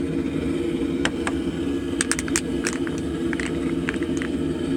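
Propane forge burner running with a steady roar, heating a cast iron melt bowl of aluminum cans, with scattered sharp clicks and crackles from about two seconds in.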